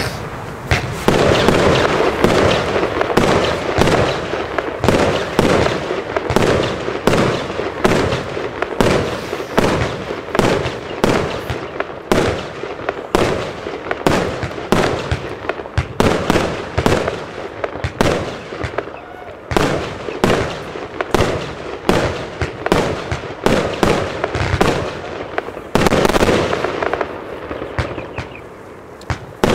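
Lesli Poisonous Panther compound firework cake firing a rapid, continuous run of shots, two or three a second, with crackling from the bursting stars between them.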